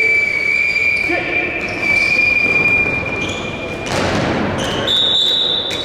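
Handball game in a sports hall: the ball thuds on the court floor, with players' voices. A long, high, steady squeal runs through the first four seconds, and a higher one sounds near the end.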